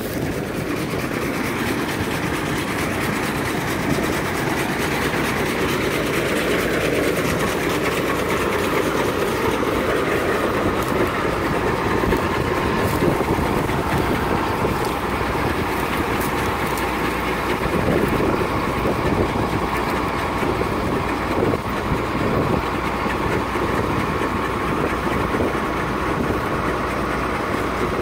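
John Deere combine running steadily during a run-out, its engine and threshing and separating mechanisms turning without a crop feeding in to clear grain and chaff from the machine. The sound is a steady mechanical rattle and drone with a thin, high whine over it.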